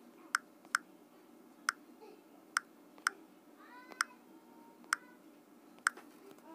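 Eight sharp, irregularly spaced clicks of phone keyboard taps as the captcha letters are typed, with a faint, brief high-pitched voice in the background about four seconds in.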